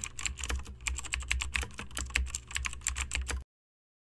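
Typing sound effect: a fast, uneven run of key clicks over a low rumble, cutting off suddenly about three and a half seconds in as the typed-out text is complete.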